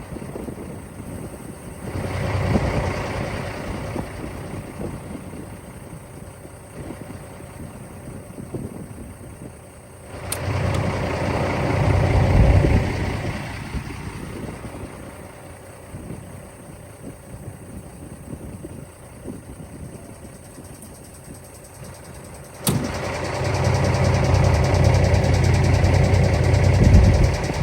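International 9900 semi truck's diesel engine idling, with three louder stretches: about two seconds in, about ten seconds in, and near the end. The last two begin with a sharp click.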